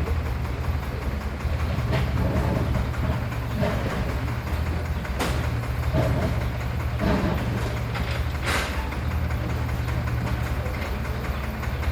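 Single-cylinder diesel engine of a công nông farm truck (a '28' engine) running steadily, with a few sharp clanks about five and eight and a half seconds in.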